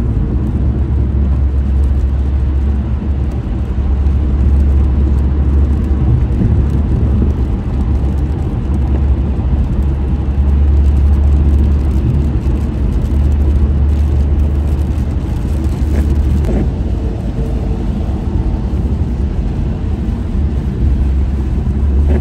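Steady low rumble of a car driving on a wet freeway, heard from inside the cabin: engine and road noise with tyre hiss from the wet pavement.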